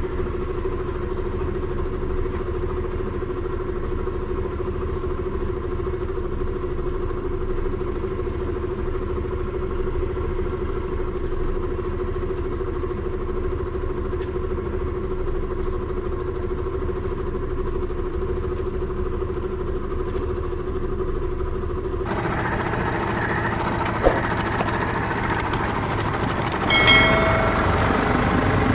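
Yamaha 9.9 hp two-stroke outboard running steadily, a constant engine drone, as it pushes a heavily loaded 27-foot sailboat: the motor is underpowered for the load. About 22 s in the sound changes abruptly, and near the end a short ringing chime sounds.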